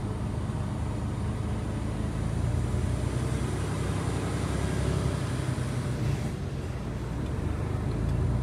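Diesel engine of a heavy semi-truck running, a steady low drone that dips slightly about six seconds in.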